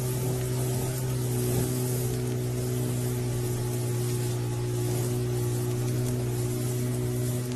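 A vehicle's engine running at a steady speed: a constant low hum with a strong even hiss over it and no change in pitch.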